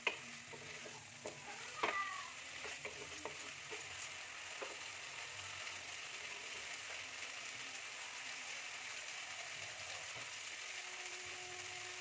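Cauliflower frying in a thick spice paste in a nonstick kadai, sizzling steadily with faint crackles. A wooden spatula scrapes and knocks against the pan a few times in the first two seconds.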